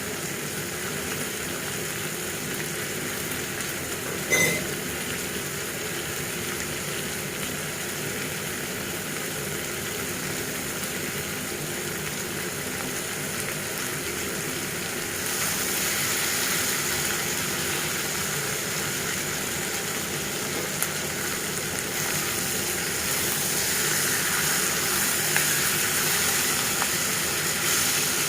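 Chicken curry sizzling in a pan: a steady frying hiss that grows louder about halfway through and again near the end. A single sharp knock, like a utensil against the pan, about four seconds in.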